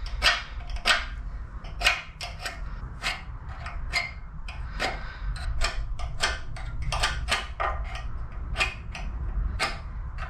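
Irregular light metallic clicks and taps as small marking-out tools are handled against steel frame plates, over a steady low hum.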